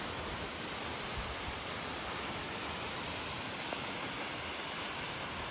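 Steady, even rushing hiss of a tall waterfall heard from high above at the clifftop.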